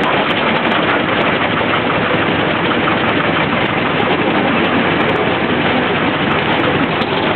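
Small narrow-gauge locomotive running steadily as it moves slowly along the track.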